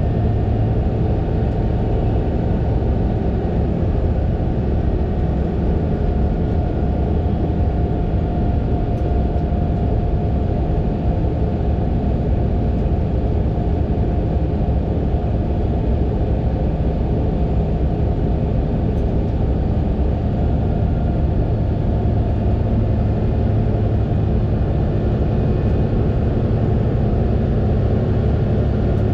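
Fendt 936 Vario tractor's six-cylinder diesel engine running steadily at a constant pitch.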